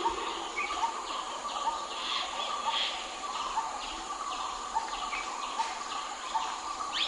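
Several birds calling and chirping outdoors, with short notes repeating again and again over a steady background.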